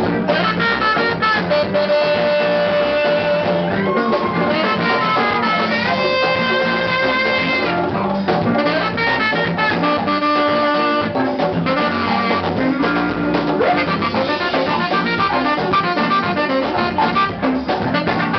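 Live band playing: horns (trombone and saxophone) hold long notes over keys, guitar, bass and percussion, with a rising slide into a long held note about four seconds in.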